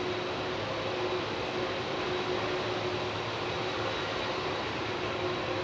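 Boeing 747 jet engines running steadily as the aircraft taxis past: an even rushing noise with a steady whine in it.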